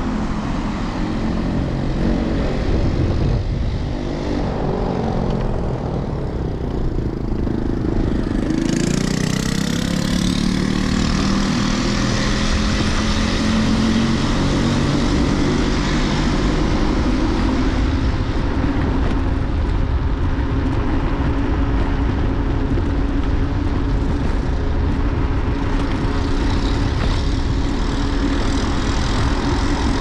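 Riding noise from an electric scooter moving through city traffic: a steady rumble of wind on the microphone and road noise, with cars around. About eight seconds in a whine rises in pitch, and from then on the noise is hissier.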